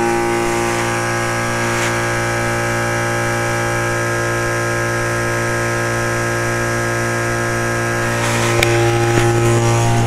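1998 Trane XL1800 heat pump outdoor unit running in defrost mode: its Climatuff reciprocating compressor gives a steady hum made of a low tone and many higher steady tones. A few light clicks come near the end.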